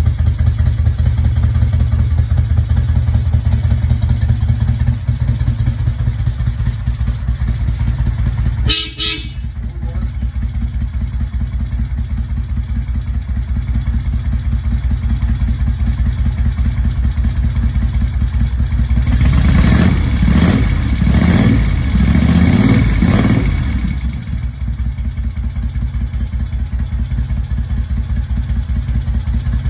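Moto Guzzi V7's transverse V-twin engine idling after being started on the choke. There is a click about nine seconds in, after which the idle runs a little lower. Several quick throttle blips come about twenty seconds in, and then it settles back to idle.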